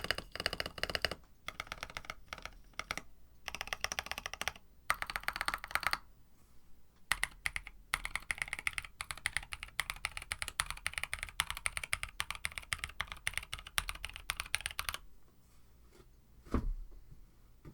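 Fast typing on a KBD67 Lite mechanical keyboard with tactile Musetsu switches on an FR4 plate, in bursts of rapid keystrokes with short pauses. The typing stops about 15 seconds in, and a single low thump follows near the end.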